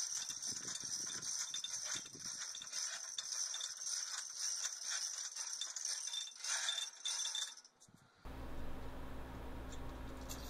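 Chain rattling and clicking from a 1-ton Ross chain hoist as its chains are worked on a tripod post puller, over a steady high hiss. It cuts off about eight seconds in, leaving a faint low hum.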